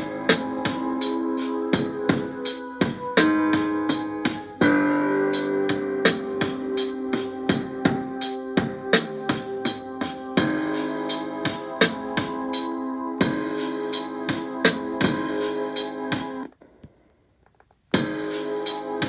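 A beat playing back from an Akai MPC Live's stock sounds: keyboard chords that change every few seconds over a steady pattern of tambourine-like hits and drums. The playback stops for about a second and a half near the end, then starts again.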